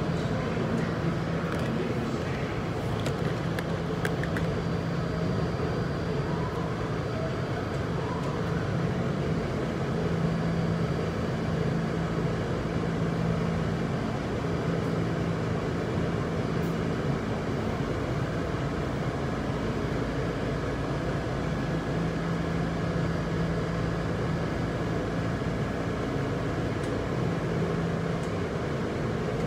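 Subway train heard from inside a moving car: a steady rumble with a low hum that fades and comes back several times.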